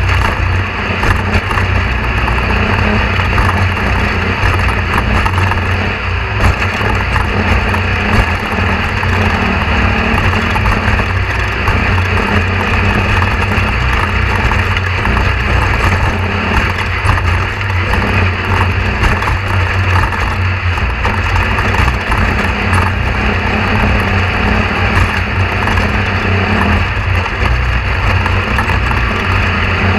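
Steady, unbroken low drone of a running motor.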